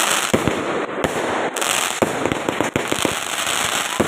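Fireworks going off: a dense, continuous crackling with many quick bangs one after another.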